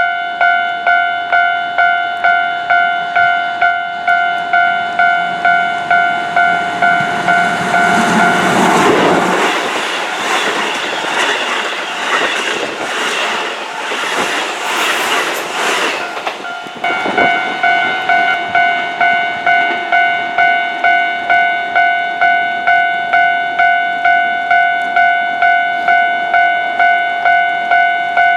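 Railway level-crossing warning bell ringing in a steady, even ding-ding rhythm. From about a quarter of the way in, a Keihan electric train passes over the crossing for roughly nine seconds, its wheels clattering over the rail joints and drowning out the bell. The bell then rings on clearly.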